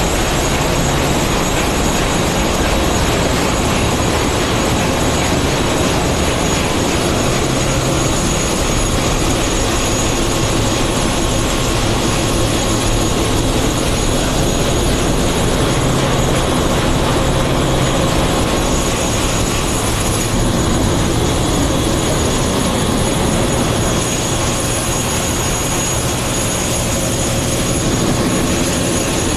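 Loud, steady machinery noise of a ship's engine room with its diesel engines running: a dense, unbroken drone with a few thin steady high whines on top.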